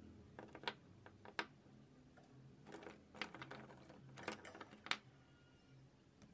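Faint, scattered clicks and light taps of oil pastel sticks and pencils being handled and set down, with a few sharper clicks among them.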